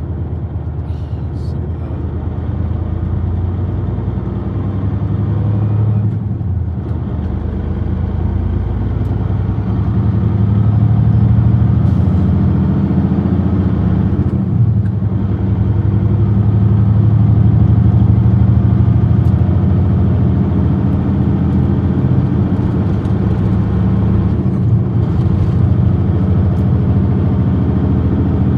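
Semi-truck's diesel engine and road noise heard from inside the cab as the truck picks up speed, getting louder after about ten seconds. The engine note breaks off briefly about six, fifteen and twenty-five seconds in, as the truck shifts up through the gears.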